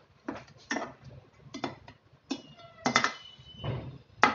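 Steel ladle clinking and scraping against the sides of a steel cooking pot while stirring balls into a thick gravy: about six sharp clinks, a couple of them ringing briefly, the loudest near the end.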